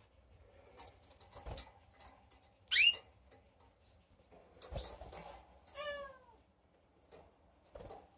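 Canary giving a loud, quick rising chirp about three seconds in, then a lower call that falls in pitch near six seconds, among scattered clicks and knocks from the wire cages.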